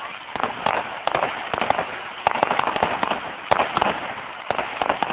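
Fireworks display: a dense, irregular stream of bangs and crackling pops from bursting shells, many per second with no let-up.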